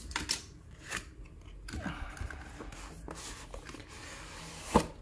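Cardboard retail box being handled and opened by hand: a few light taps and clicks, then a stretch of cardboard sliding and rubbing as the box opens, and one sharp click near the end.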